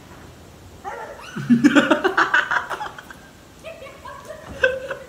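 A man laughing hard in loud, rapidly pulsing bursts, starting about a second in and breaking out again near the end.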